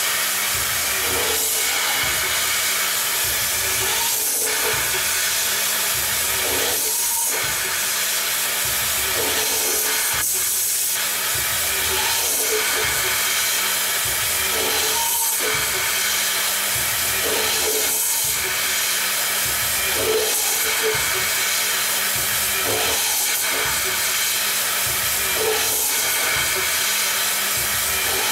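CNC lathe cutting threads into a spinning steel part with a custom form tool: a steady machining hiss, with brief tones recurring every second or two.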